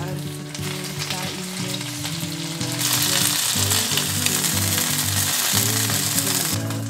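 Chicken wings and tofu sizzling in oil in a frying pan. The sizzle grows much louder about three seconds in and cuts off suddenly near the end, over soft background music.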